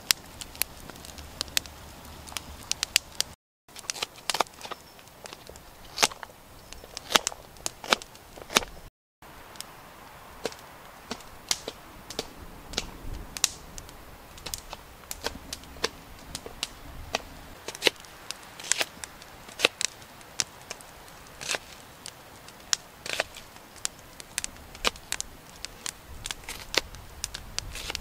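Wood campfire burning damp wood, crackling with sharp, irregular pops and snaps.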